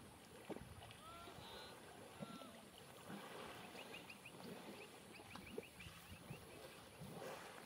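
Faint water sloshing and splashing as a herd of elephants wallows in a muddy river, with a few short bird calls and a quick run of chirps over the top.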